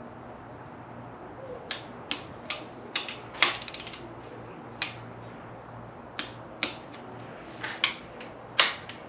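Click-type torque wrench clicking over repeatedly as engine main-cap bolts are brought to 33 ft-lb in sequence. A short rapid run of ratchet clicks comes about three and a half seconds in, and the sharpest click comes near the end.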